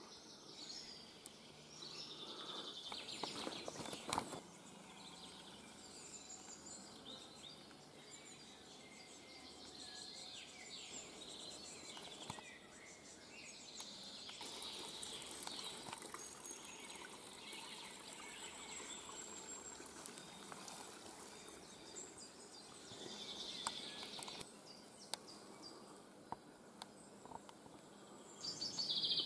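Woodland birds singing and calling, several overlapping chirps and trills, over a faint steady background hiss.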